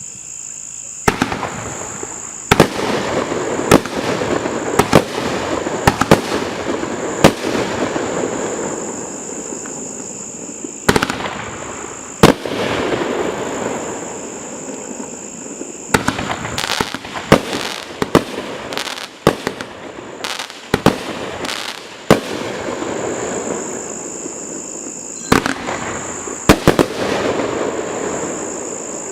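A T-Sky 500-gram consumer fireworks cake firing. Sharp shots come about once a second at first, then a rapid volley in the middle, then a few more near the end, with continuous crackling between the shots.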